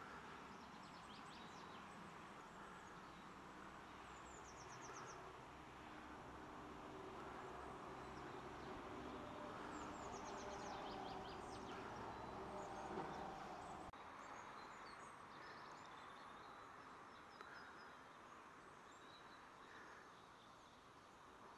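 Faint wild songbird calls, with short high trills of quick repeated notes heard a few times, over a steady low hum of outdoor background noise that drops about two-thirds of the way through.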